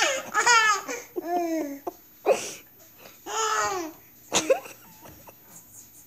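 Toddlers laughing and babbling in about five short, high-pitched bursts, dying away after about four and a half seconds.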